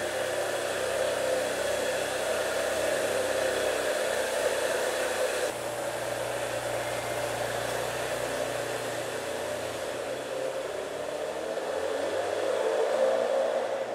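Supercar engine running under a strong rushing hiss, its note changing abruptly about five seconds in. Near the end it grows louder and rises in pitch, then cuts off.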